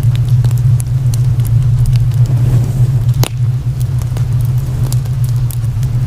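Fire crackling: scattered sharp pops and ticks over a loud, steady low hum, with one louder pop a little past the middle.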